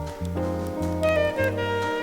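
Background music: a bass line stepping through held notes about twice a second under an instrumental melody.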